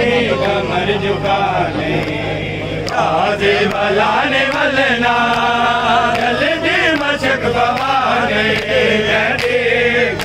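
Men's voices chanting a nauha (mourning lament) in chorus, with sharp slaps about once a second from matam, mourners beating their chests.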